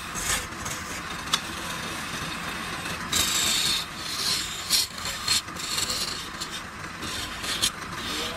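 A hand-held turning tool cutting into the face of a wooden tray spinning on a lathe: a steady scraping hiss as shavings come off, louder for a moment about three seconds in, with a few sharp ticks.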